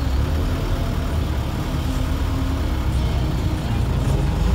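Old Mitsubishi diesel engine of a 1990s medium bus running under way, heard from inside the cabin as a steady low rumble that grows louder near the end.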